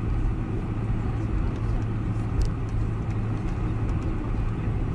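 Steady cabin rumble inside a taxiing Boeing 747-400, its four GE CF6-80C2 turbofans at low thrust, with a constant low hum and a faint tick about two and a half seconds in.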